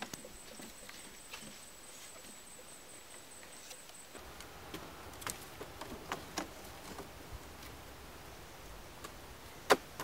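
Scattered light clicks and knocks of bamboo strips and wooden poles being handled and laid, with one sharp knock near the end. A thin high steady tone runs through the first four seconds and then stops.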